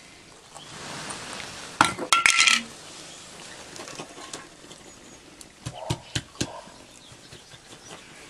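Clinks and knocks of a food container against an enamel plate as cat food is tipped out onto it. A quick loud cluster comes about two seconds in, one strike with a short ringing tone, and a few more knocks follow around six seconds.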